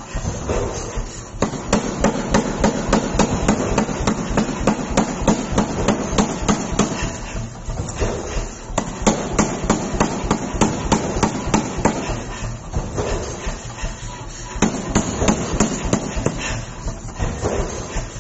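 Mechanical power hammer forging a red-hot steel billet into a knife blank: rapid, repeated blows of the ram on the hot metal and die, about four or five a second, with a few short pauses.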